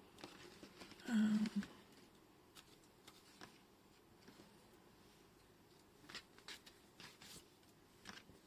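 Faint, scattered rustles and light taps of paper doilies being handled on a craft table, with a cluster of them near the end.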